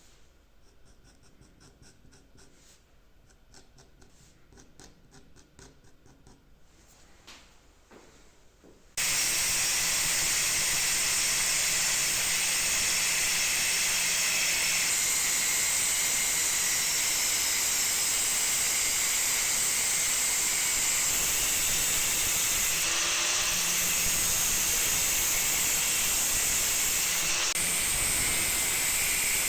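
A few faint light clicks of handwork, then about nine seconds in a loud, steady hiss starts abruptly and holds without change.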